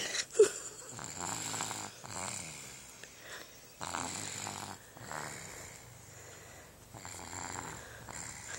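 Snoring: slow, repeated snores, one every two seconds or so. A short, loud, squeaky sound comes about half a second in.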